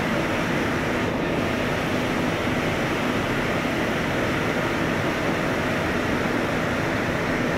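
Steady industrial hall noise: machinery and ventilation running as a constant rushing hum, even throughout, with a faint steady tone under it.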